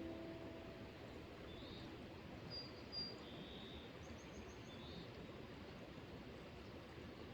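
Faint outdoor ambience, a steady soft hiss, with a few short bird chirps spaced through it. The last notes of guitar music fade out right at the start.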